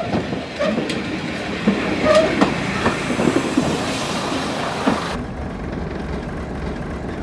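Train station platform sound with a train: clatter, knocks and brief squeaks over a rumbling background. About five seconds in, the sound changes abruptly to a steadier low rumble.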